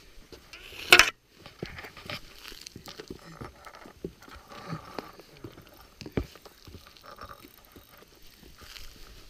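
Rustling and light clicking of hands and clothing as an angler threads bait onto a fishing rig, with a sharp loud knock about a second in and a dull thud about six seconds in.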